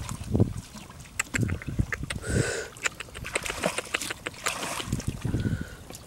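Splashing and dripping of shallow muddy water as hands work in it around a coconut-log fish trap, with scattered small drips and clicks.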